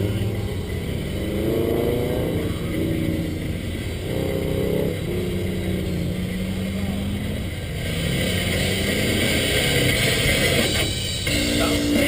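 Pickup truck engine revving up and easing off several times, its pitch rising and falling, with wind and road noise heard on the roof-mounted camera.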